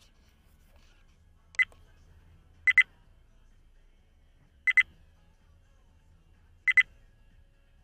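Short high-pitched electronic beeps over a faint low hum: one single beep, then three double beeps spaced about two seconds apart.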